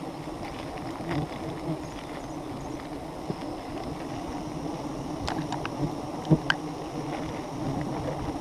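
Wild honeybees buzzing in a swarm around their exposed comb, a steady low hum, with a few sharp clicks and knocks past the middle.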